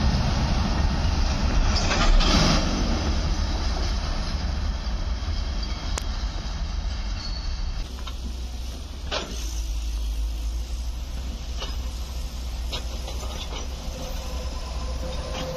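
Freight train of open coal wagons rumbling past on the rails, the wheels clattering. About halfway through it gives way to a quieter, steadier rumble of an approaching electric-hauled passenger train, with a few sharp clicks.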